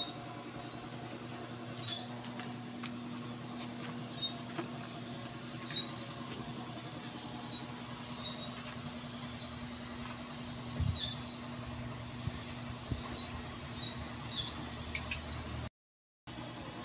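A vehicle engine idling with a steady hum, with short high squeaks every second or few; the squeaks are loudest about 11 and 14 seconds in. The sound cuts out for about half a second near the end.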